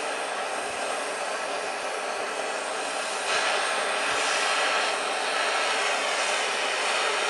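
Gas torch flame running steadily as it heats the small end of a connecting rod, expanding it for a press fit onto the wrist pin. The flame gets louder about three seconds in.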